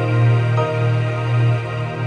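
Background music: a calm new-age soundtrack of sustained tones over a low, gently pulsing bass, with soft new notes coming in about half a second in.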